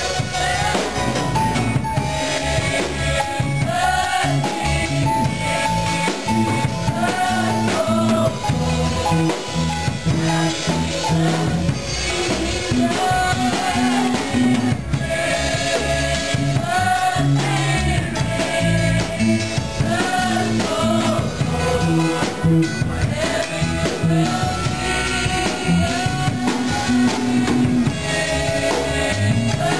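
Live worship song: a woman singing lead into a microphone with a choir singing along, backed by a band with a drum kit keeping a steady beat.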